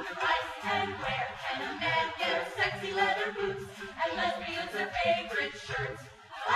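A group of voices singing a cappella in a choir-like blend, dropping away briefly near the end.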